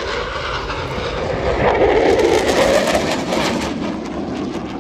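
Eurofighter Typhoon's twin EJ200 turbofan engines passing overhead in a flying display: a loud rushing jet noise that swells to a peak, crackling, about two to three seconds in, then fades.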